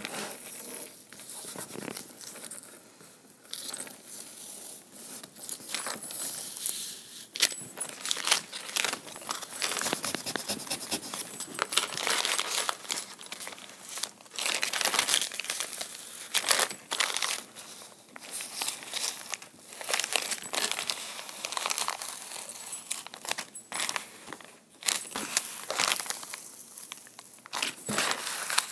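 Clear vinyl transfer tape crinkling and peeling away from adhesive vinyl letters on a wooden slat board, in irregular crackly rustles, with hands pressing the letters down between pulls because the vinyl is reluctant to stay stuck to the wood.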